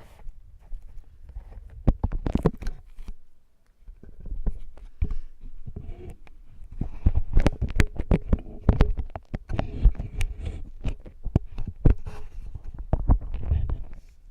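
Crackling, sticky scraping and clicking as an ear-cleaning tool works wet, sticky fake earwax inside a silicone ear, over a low rumble of handling noise. There is a short lull about three and a half seconds in.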